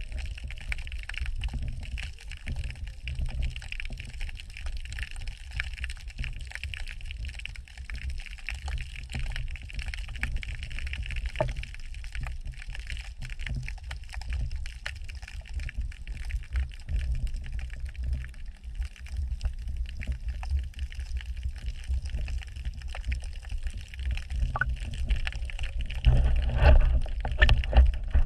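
Underwater sound picked up by a submerged camera: a muffled, fluttering low rumble of water moving against the housing, with scattered faint crackles. It grows louder a couple of seconds before the end.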